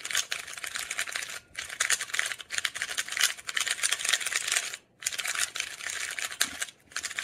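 MoYu RS3M 2020 magnetic 3x3 speedcube being turned fast: a rapid stream of plastic clicks and clacks, pausing briefly about a second and a half in and again about five seconds in. The cube is new and heavily lubed, still gummed up and slow before break-in.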